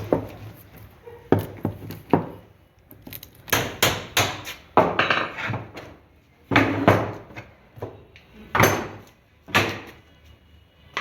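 An irregular series of sharp knocks and thuds, about ten in all, some followed by a short rattling or scraping tail.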